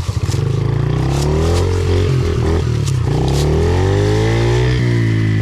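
Small vehicle engine revving up and easing off under a rider, its pitch rising and falling several times.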